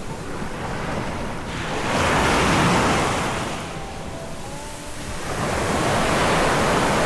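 Sea surf breaking on a sandy beach, the wash swelling and fading twice, with wind on the microphone.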